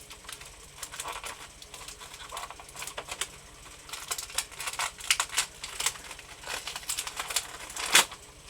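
Plastic packaging crackling and clicking as an action figure is pried out of its tight-fitting plastic tray, with irregular snaps and one louder snap near the end.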